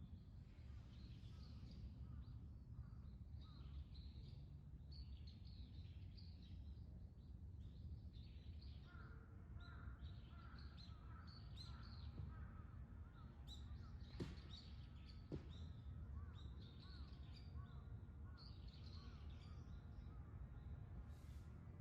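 Faint chirping of several songbirds, with a run of repeated lower calls in the middle, over a steady low background rumble. Two sharp clicks come a little past halfway.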